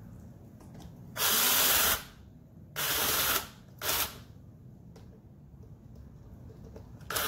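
Cordless drill running in three short bursts, the first two under a second each and the third very brief.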